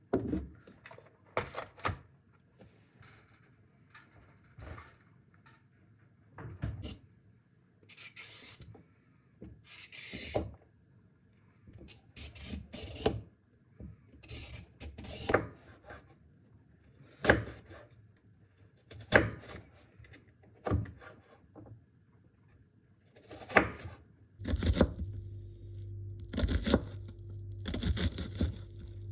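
Everyday handling sounds: a scattered series of knocks, clicks and rubs of objects being moved about. Near the end a steady hum from an appliance starts up under them.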